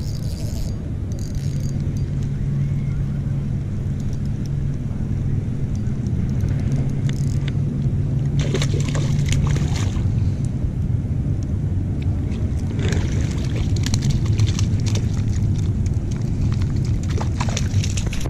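A hooked trout splashing and thrashing at the water's surface as it is reeled in on a spinning rod, about eight seconds in and again through the last few seconds, over a steady low rumble.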